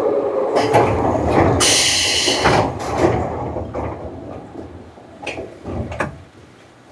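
Pneumatic doors of a Seibu New 101-series electric train closing: a burst of compressed-air hiss about two seconds in, then two knocks as the doors shut.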